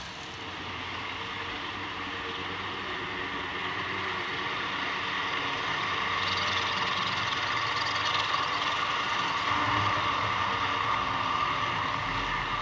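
Model passenger train running on the layout track: a steady mechanical drone holding several level tones, growing louder through the first half as the train approaches and passes.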